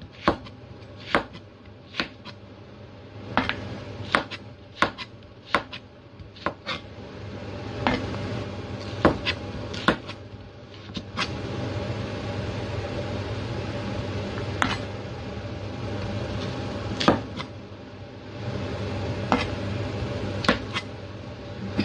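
Chinese cleaver slicing a carrot into sticks on a plastic cutting board: sharp single knocks of the blade hitting the board at an uneven pace, close together at first, then sparser. A steady low hum rises in the background from about eight seconds in.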